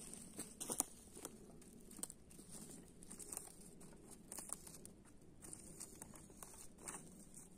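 Footsteps on a dry forest floor of pine needles, twigs and dead leaves: faint, irregular crackles and rustles, with a sharper snap about a second in.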